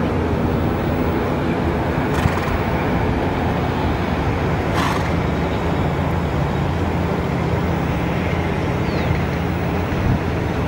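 Steady low rumbling background noise with a hiss, and two short hissing bursts about two and five seconds in.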